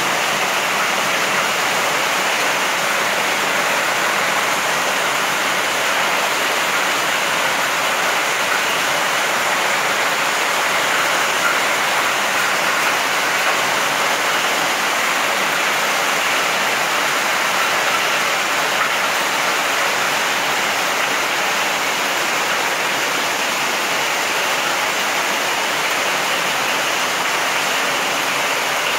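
Heavy rain falling steadily on a gravel yard and tree leaves, a dense even hiss with no letup.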